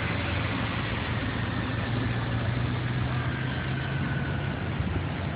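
Helicopter turbine engine running: a steady low rumble with a thin whine that falls slowly in pitch.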